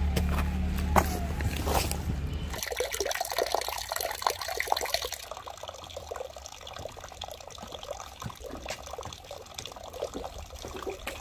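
A low rumble for the first two and a half seconds, then an abrupt change to water trickling and splashing, busiest for a few seconds and then lighter and steady. This is a small water source in the forest where drinking water is about to be filled.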